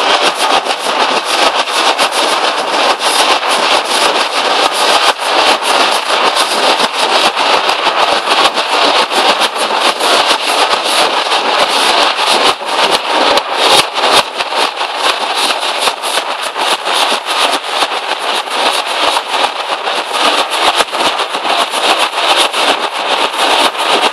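Nashik dhol troupe playing: a large group of big double-headed barrel drums beaten with sticks in a loud, fast, unbroken rhythm of sharp strokes.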